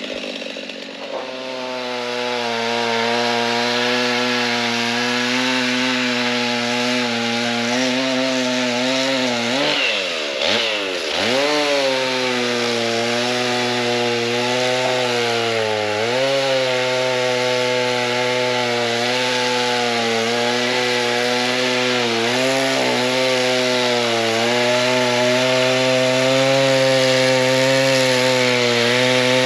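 Two-stroke chainsaw running at high speed while cutting wood. Its pitch sags and recovers briefly about ten seconds in and again around sixteen seconds.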